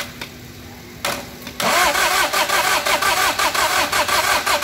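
Daihatsu Charade three-cylinder turbo-diesel engine, out of the car, being cranked over on its starter motor. It starts about one and a half seconds in with an even, rhythmic beat of about four pulses a second.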